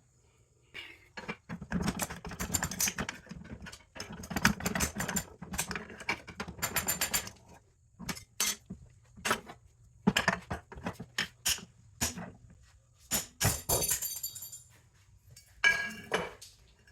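Scrap metal parts from a pump motor clinking and clattering as they are handled and set down, with a string of short knocks and several ringing metallic clinks.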